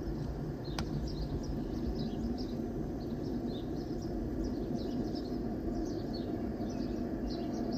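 Small birds chirping again and again over a steady low outdoor rumble, with a single sharp click about a second in.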